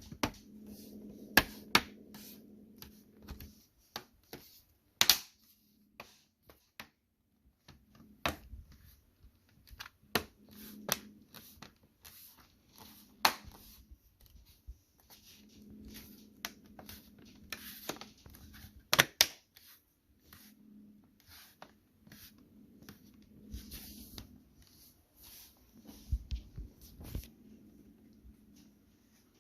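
Plastic retaining clips of an ASUS TUF Gaming F15 laptop's bottom cover snapping into place as the cover is pressed down: a string of sharp, irregular clicks, some in quick pairs, with soft handling and rubbing noise between them.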